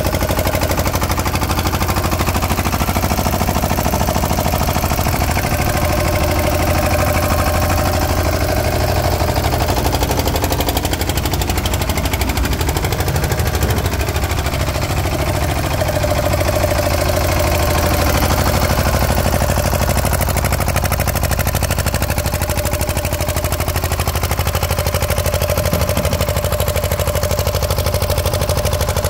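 Kirloskar 10 kVA diesel generator set running steadily, a rapid, even diesel knock with a constant low hum, while on a water-load test.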